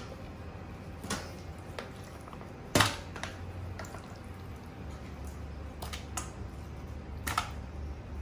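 Raw chicken pieces being handled on a tray and dropped into stainless steel bowls: a few scattered wet slaps and light clinks, the loudest about three seconds in, over a low steady hum.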